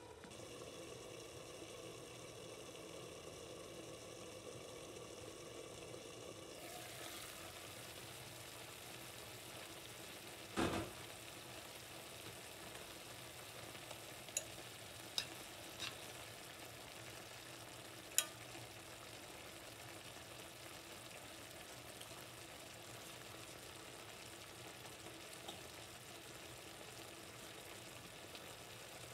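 Sliced zucchini, carrot and tomato sizzling gently in an enamelled cast-iron pan. One knock about a third of the way in, then a few sharp clicks of a metal utensil against the pan as the vegetables are stirred.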